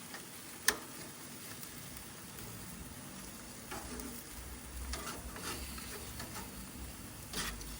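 Food sizzling on a mangal grill in a steady hiss, with a few light clicks. A single sharp click just under a second in is the loudest sound.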